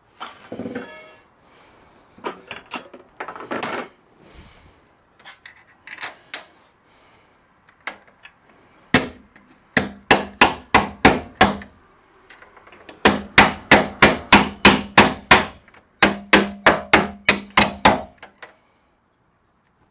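Hammer blows on a Jeep XJ door hinge, driving out the old hinge pin. A few lighter knocks and scrapes come first; then, from about nine seconds in, three quick runs of sharp strikes follow at about four or five a second, each strike with a faint metallic ring.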